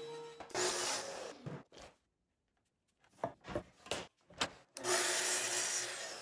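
Wood being cut and handled at a Festool track saw: a short noisy burst of cutting, a few knocks and scrapes as a wood block is set against the guide rail, then a steady stretch of noise as the track saw cuts through the block.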